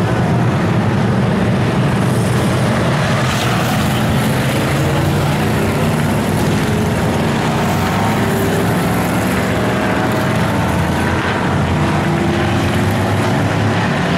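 Dirt-track race car engines running on the oval, a dense steady drone with pitches sliding up and down as the cars accelerate and lift around the track.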